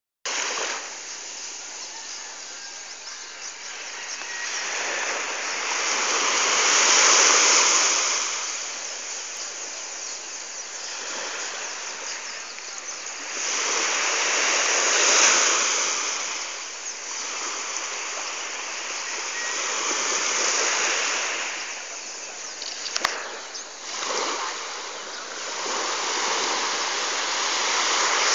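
Small waves breaking and washing up a sandy beach: a steady rush of surf that swells and fades every several seconds. One brief click about three quarters of the way through.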